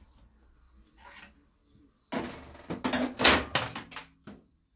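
Hard clattering and scraping from the plastic casing of an electric heater being tugged at by hand. It starts about two seconds in and lasts about two seconds.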